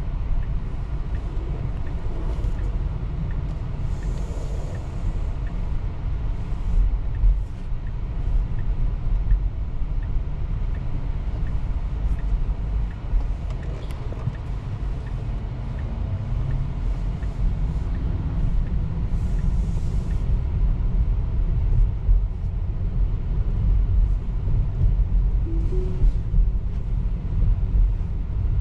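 Steady low road and tyre rumble heard inside the cabin of a moving Tesla electric car, with no engine note; twice, a brief rush of higher hiss rises over it.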